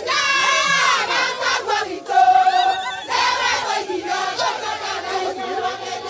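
A large crowd cheering and shouting, many raised voices at once.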